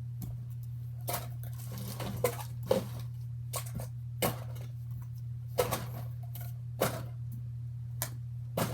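Plastic fidget toys being handled and set down into a storage container: a string of irregular light clicks and knocks, roughly one a second, over a steady low hum.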